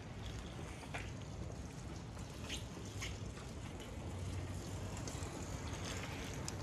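Steady rain falling on wet pavement, with a few drops tapping close to the microphone, over a faint low rumble that grows a little louder past the middle.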